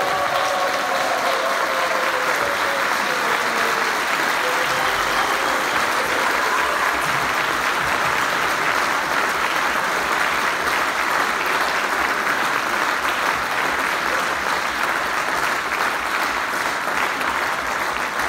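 Audience applauding steadily and at length. In the first few seconds a few held voices call out over the clapping, sliding down in pitch as they fade.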